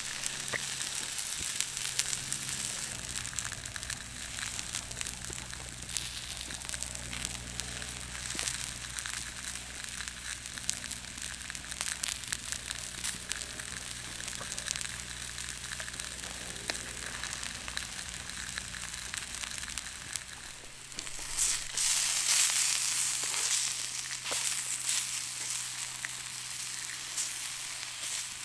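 Vegetables sizzling and frying on a hot flat stone over campfire embers, a steady hiss full of small pops and crackles. The sizzle grows louder for a few seconds about three-quarters of the way in.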